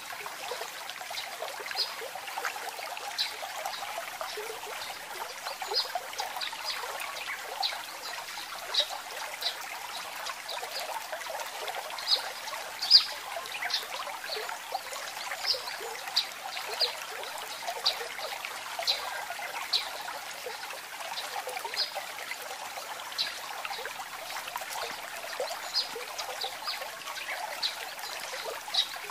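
Food sizzling in a hot pan: a steady hiss with frequent small irregular pops.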